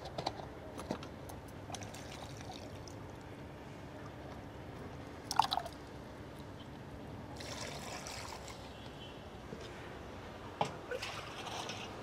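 Faint water sloshing and trickling, with a few brief splashes, as a bio-pesticide powder is mixed into water for a spray solution.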